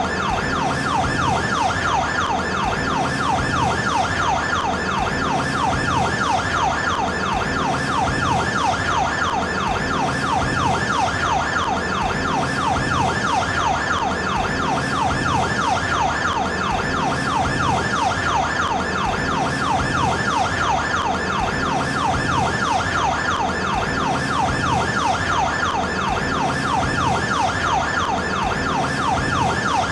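Emergency siren of the TOKYO MER ER car, sounding continuously as a fast, rapidly repeating sweeping wail, with a lower tone pulsing about every two seconds underneath.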